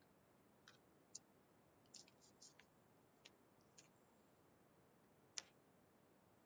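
Near silence with about seven faint, sharp clicks scattered irregularly, the loudest about five seconds in.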